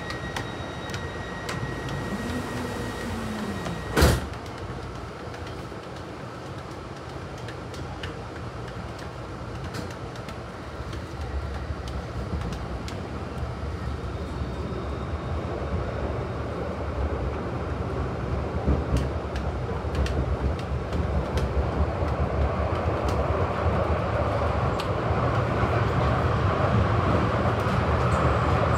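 Glasgow Subway train rumbling and rattling, growing steadily louder as it picks up speed. Early on a steady high tone sounds and stops with one sharp knock about four seconds in.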